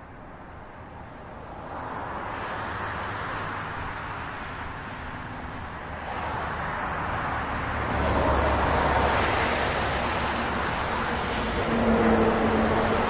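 Highway traffic approaching and passing: tyre and engine noise that grows louder in several waves as cars go by. About twelve seconds in, a steady low engine hum joins as a heavy-transport convoy's lead vehicle comes close.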